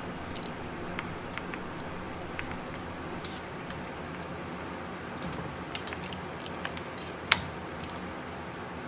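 Metal tongs clinking irregularly against a stainless steel stockpot and the beef ribs as they are lifted out of steaming blanching water, over a steady hiss; the sharpest clink comes about seven seconds in.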